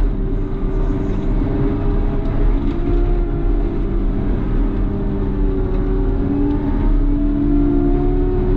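Caterpillar loader's diesel engine running steadily under load, its pitch rising a little near the end.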